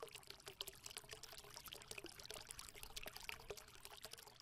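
Faint, steady trickling crackle like water being poured, made of many tiny clicks.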